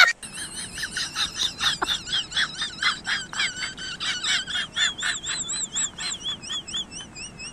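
Rapid high-pitched peeping calls from small young animals, about three or four a second, each with a little wavering rise and fall. Two callers overlap near the end.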